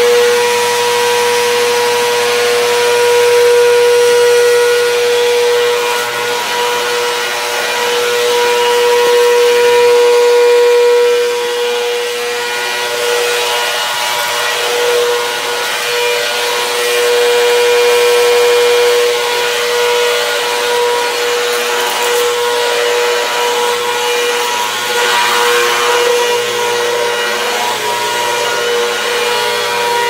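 Vacuum cleaner running steadily: a constant motor whine over rushing air, swelling and dipping a little in loudness.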